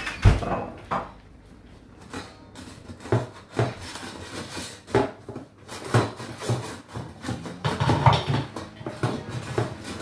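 Whirlpool dishwasher running a rinse, its water jets sloshing and clattering irregularly against the dishes and tub. The sharpest knock comes just at the start, and the sound eases for a second or so before building again.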